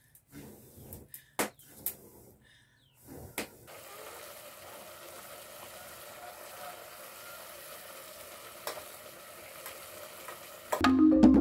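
A pot of meat stew cooking over an open wood fire: a few scattered knocks and clicks, then from about three and a half seconds in a steady sizzle with the odd sharp crackle. Loud rhythmic music comes in near the end.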